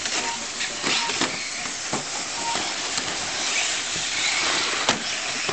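Radio-controlled short-course trucks running on a carpet track: a steady hissing whir of motors, gears and tyres, broken by a few sharp clicks and knocks.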